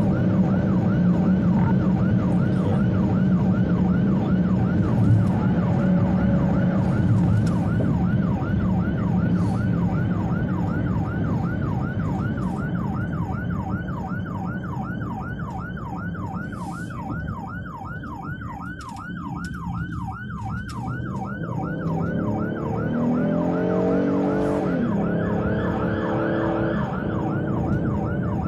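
Electronic emergency siren on a fire department command vehicle, sounding in a fast, repeating yelp of about three sweeps a second, heard from inside the moving vehicle over engine and road noise. About 23 seconds in the yelp briefly gives way to a lower, falling tone pattern before it resumes.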